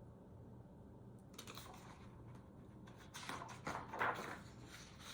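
Faint rustling of picture-book pages being handled and turned, with light clicks, loudest about three to four seconds in.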